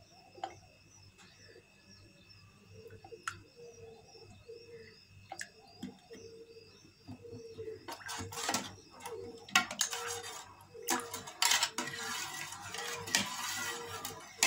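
Metal spoon and ladle stirring milk and rose syrup in an enamel pot, scraping and clinking against the pot. Only a few faint clicks at first; the stirring gets louder and busier about eight seconds in.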